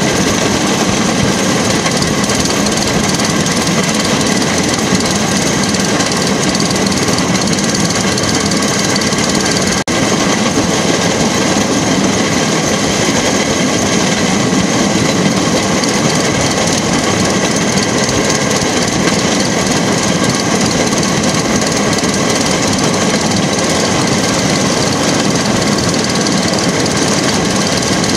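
Motorised rail track car (jigger) travelling along the rails: its small engine chattering steadily, mixed with the running noise of its wheels on the track.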